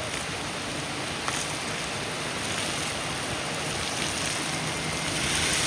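Steady hiss of heavy rain or falling water splashing, growing a little louder near the end.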